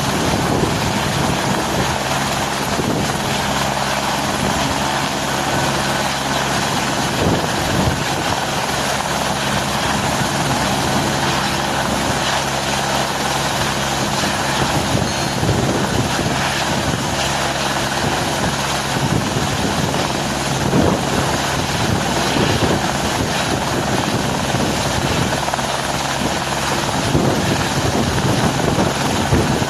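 Helicopter running loud and steady, its rotor and engine giving a constant low hum of several pitches over a broad rushing noise.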